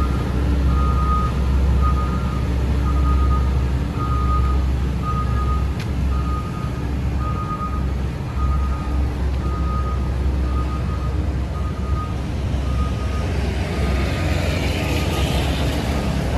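A heavy diesel construction machine running with a low engine rumble while its reversing alarm beeps steadily, about one and a half beeps a second, the signal that it is backing up. The rumble and beeps fade in the last few seconds as a rushing hiss swells.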